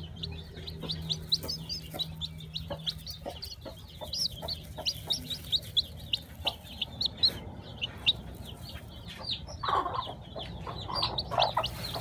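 Newly hatched chicken chick peeping, a rapid run of short, high-pitched peeps, about four a second. There are a few lower clucks near the end.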